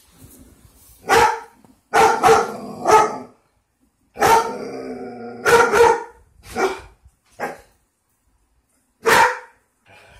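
German Shepherd guard dog barking loudly in irregular bursts, about eight barks, one of them longer and drawn out around four seconds in.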